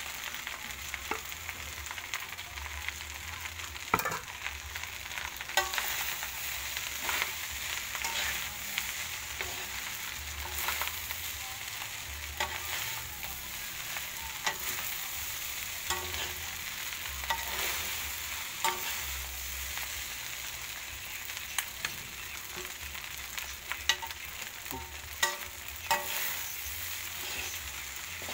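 Rice sizzling as it is stir-fried in a metal wok, with a steady frying hiss. A wooden spatula stirs and scrapes the rice, and it knocks sharply against the pan now and then.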